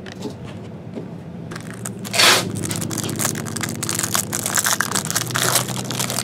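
A sealed plastic-wrapped trading card pack being torn open: a sharp rip about two seconds in, then steady crinkling of the wrapper as the stack of cards is worked free.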